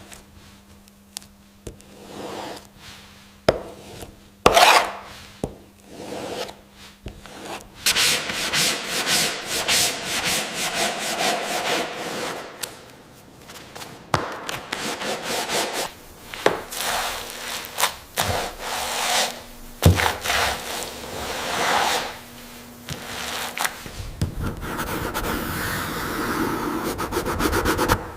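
Rubbing and sanding on wood: scattered sharp knocks in the first few seconds, then a long run of rough back-and-forth strokes, turning into a steadier sanding noise near the end.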